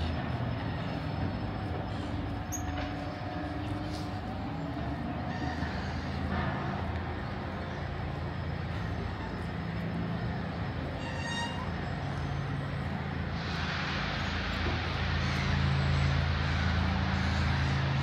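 Urban outdoor background: a steady low mechanical hum, joined about three-quarters through by a louder, even rushing hiss that lasts to the end.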